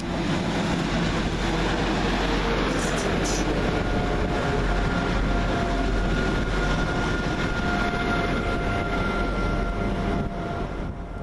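Transport for Wales Class 175 diesel multiple unit passing close by, its underfloor diesel engines running with a steady tone over the rumble of the train. The sound fades about ten seconds in as the train moves away.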